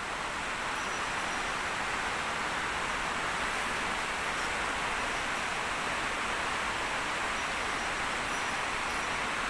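Steady rush of a mountain stream tumbling over rocks.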